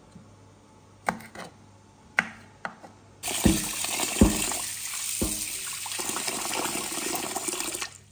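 A few knife strokes on a wooden chopping board. Then a tap runs into a steel bowl of raw rice while hands swish and rub the grains, with a few dull knocks of the bowl. The water stops near the end.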